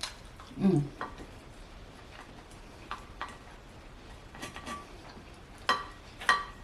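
A utensil clinking and tapping against a dish while eating, in several separate strikes that each ring briefly; the last two, near the end, are the loudest. There is also a short low sound a little under a second in.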